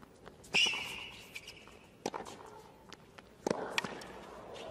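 Tennis rally on a hard court: racket-on-ball hits about every second and a half, the first one the loudest and followed by a high squeal. Crowd noise starts to swell near the end as the point is won.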